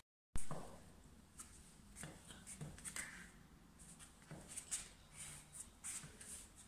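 High-heeled sandals tapping and scuffing on a tiled floor as the wearer shifts and steps in place: a sharp knock about a third of a second in, just after a brief cut to silence, then a run of light taps and scrapes.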